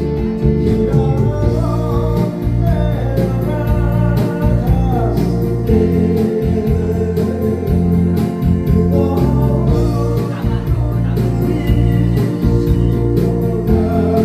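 A singer sings a Korean song over a band accompaniment with guitar, bass and a steady beat.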